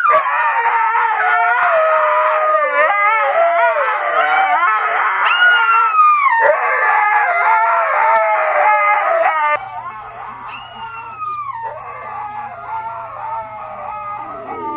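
A dog howling in long, wavering calls that rise and fall in pitch. About ten seconds in it cuts abruptly to a quieter howl over a steady low hum.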